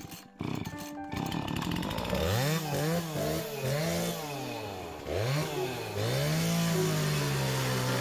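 Chainsaw engine revved up and down several times, each rev rising and dropping in pitch, then held at a steady speed from about six seconds in.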